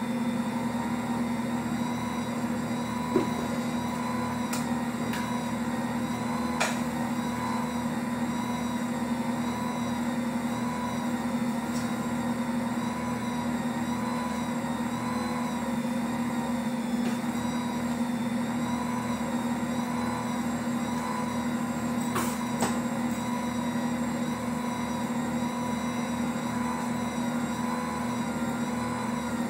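Ankarsrum stand mixer's motor running steadily at its lowest speed, kneading bread dough with the dough hook, an even mechanical hum. A few sharp clicks stand out, the loudest about three seconds in.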